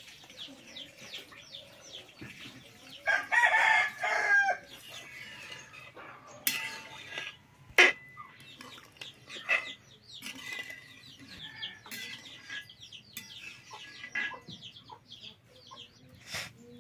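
A rooster crows once, loud and drawn out, about three seconds in, among chickens and many short high chirps. A few sharp clacks come near the middle.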